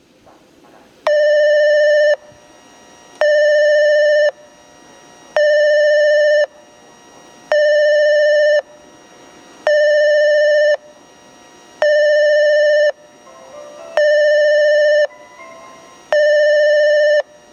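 Railway station train-approach warning buzzer, signalling that a train is approaching. It gives a loud, steady electronic beep about a second long, repeating every two seconds, eight times, starting about a second in.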